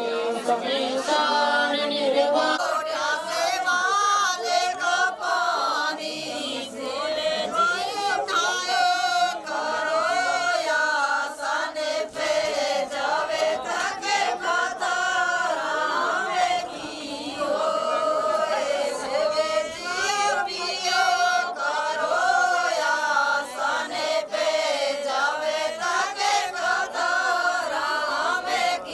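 A group of women singing a devotional song together in one high melody line, with a few sharp clicks or claps scattered through it.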